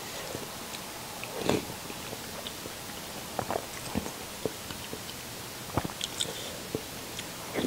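Close-miked mouth sounds of someone eating noodle soup: chewing with scattered short wet clicks, and sips of broth from a spoon around the middle and near the end.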